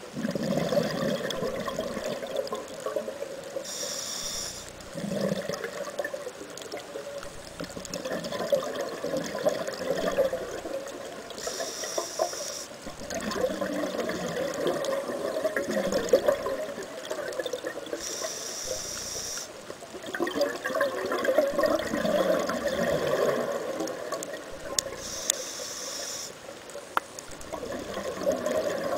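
Scuba diver breathing through a regulator underwater: four short hisses of inhaled air, each followed by a few seconds of bubbling as the exhaled air vents.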